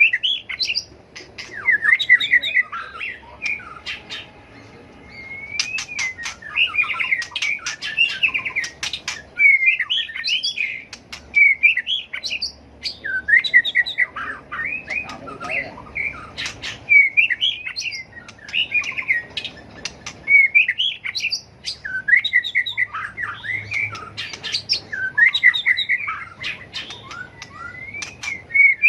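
White-rumped shama singing: repeated phrases of rich warbling whistles that slide up and down, broken by sharp clicks.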